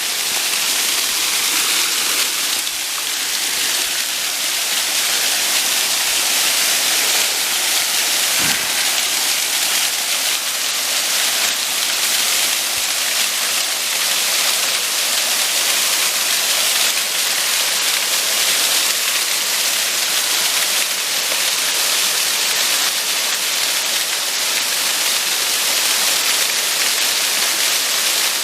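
Steady rush of running water cascading down a mountain stream below a waterfall, swelling slightly over the first second. A single brief low thump about eight seconds in.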